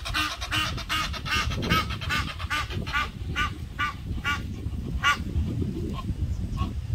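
Egyptian geese honking: a fast run of harsh, repeated honks, about three a second, that slows and stops about five seconds in, followed by two fainter honks.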